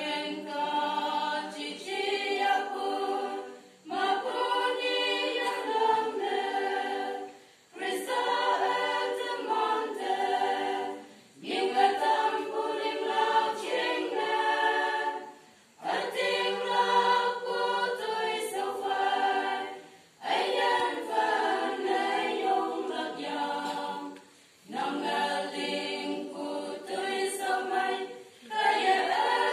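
Women's choir singing a cappella, in phrases of about four seconds separated by short breaths.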